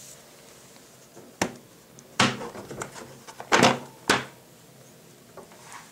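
A black plastic Glock factory pistol case being unlatched and opened: a sharp click, then a few louder plastic clacks and knocks as the latches and lid move, and two small ticks near the end.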